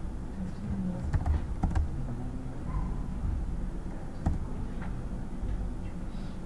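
Computer keyboard typing: irregular keystrokes, a quick cluster between one and two seconds in and a few single presses later, over a steady low hum.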